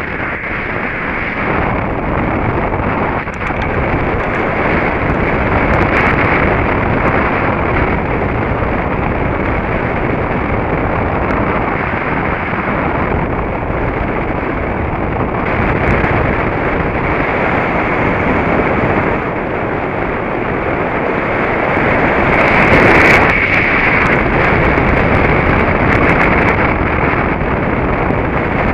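Wind noise from the airflow of a hang glider in flight rushing over the microphone of a camera mounted on the glider: a steady, loud rush that swells and dips, strongest a little after two-thirds of the way through.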